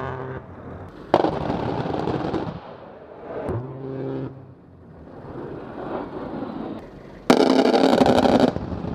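A-10 Warthog's 30 mm GAU-8 cannon firing in bursts: two loud, sudden crackling bursts of about a second and a half each, about a second in and near the end, with a shorter humming burst between them.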